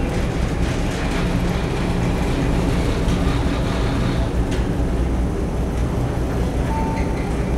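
Steady low rumble with a hiss over it inside a container ship's wheelhouse in heavy seas: the ship's engine and hull vibration.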